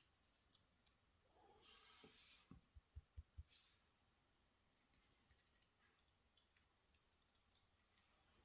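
Faint clicks and light taps of tweezers and small lock pins being handled during disassembly of a pin-tumbler cylinder, with a short rustle about two seconds in and a few soft knocks just after.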